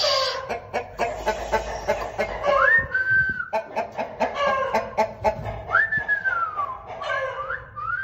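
O Shamo game chickens, a rooster and a hen, clucking in short repeated calls, with scattered sharp clicks of wings and scratching feet as the rooster treads the hen at the start. A few thin whistle-like tones slide up and then down, about three seconds in, around six seconds, and again near the end.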